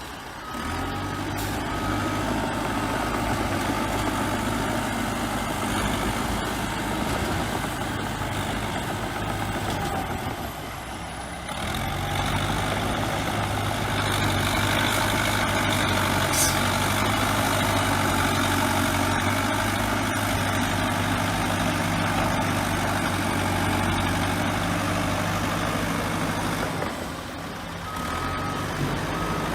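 Diesel engine of a crawler bulldozer running steadily under work, with a backup alarm beeping a few times near the start and again near the end.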